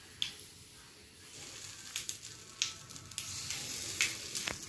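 Oil sizzling in a hot appe pan as semolina batter is spooned into its cavities. The hiss grows about a second in, with several short sharp pops and ticks scattered through it.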